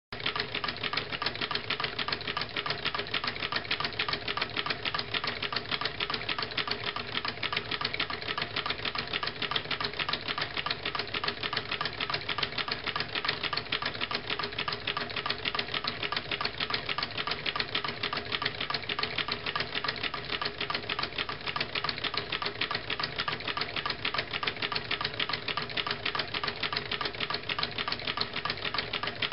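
Homemade walking-beam Stirling engine built from a drink can, with a rocking wooden beam and a CD flywheel, running with a rapid, steady clicking.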